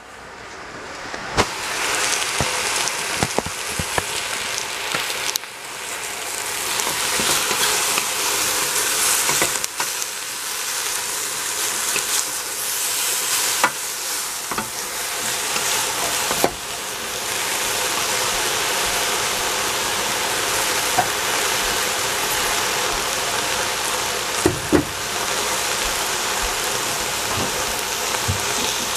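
Cabbage, broccoli, pork and bean thread sizzling in a stainless steel pot while being stirred with a wooden spatula, with scattered sharp knocks of the spatula against the pot. The sizzle swells in over the first couple of seconds and then holds steady.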